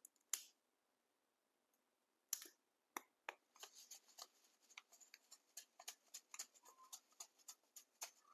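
A few isolated sharp clicks, then from about three seconds in a run of small irregular ticks, several a second, as sesame seeds are shaken from a paper packet into a ceramic bowl of sauce.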